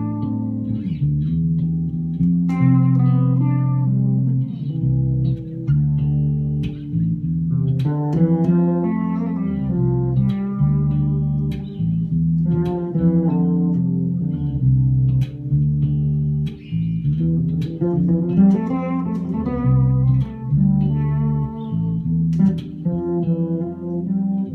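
Two electric bass guitars, one fretted and one fretless, playing a duet. Low sustained notes sound under higher melodic lines and chords.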